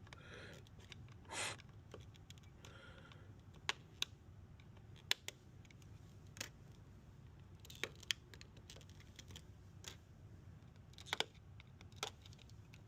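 Sparse light clicks and taps, with a brief scrape about one and a half seconds in: the retaining tabs of a Samsung Bespoke refrigerator's door panel being popped out by hand.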